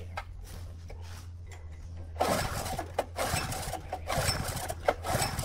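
Recoil starter on a Mikasa plate compactor's small engine being pulled hard again and again: four short whirrs of the cord and cranking engine about a second apart, starting about two seconds in. The engine does not fire.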